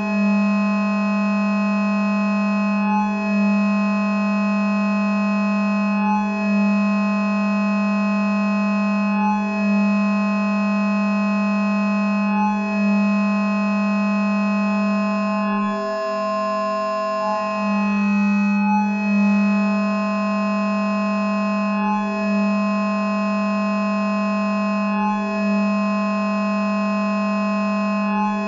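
Electronic drone music: a sustained chord of many steady tones over a strong low note, shifting briefly about every three seconds, with a change in the chord a little past the middle.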